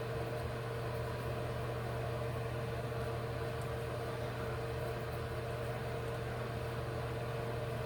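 Steady low hum with a constant pitch and faint hiss, unchanging throughout: background room hum.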